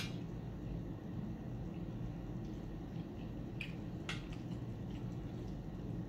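Soft wet mouth smacks and clicks of a man eating baked catfish, two close together near the middle, over a steady low room hum.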